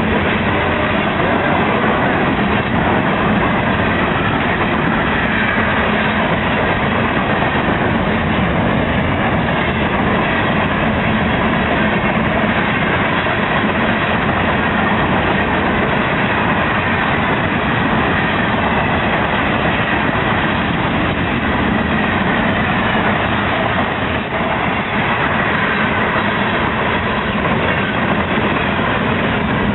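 CSX rock train (freight K915) rolling steadily past, a continuous rumble and rattle of the train.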